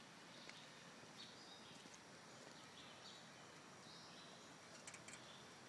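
Near silence: faint outdoor background hiss with a few faint, short, high chirps.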